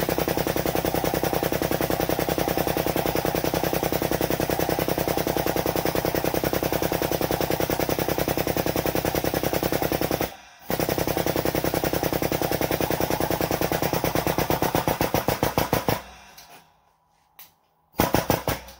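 Air-over-hydraulic jack on a shop press pumping: a rapid, even rattle of pulses from the air-driven pump as the ram presses a metal bracket flat. It pauses briefly about ten seconds in, runs again, stops about sixteen seconds in, and gives a short burst near the end.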